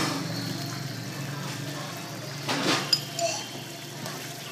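Metal ladle stirring and scraping in a metal pan of simmering pork and coconut-milk curry, with a short scrape and a sharp clink about three seconds in, over a steady low hum.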